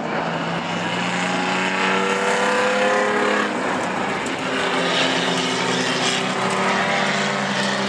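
Engines of several dirt-track race cars running hard in a pack. The pitch climbs steadily, drops about three and a half seconds in, then climbs again.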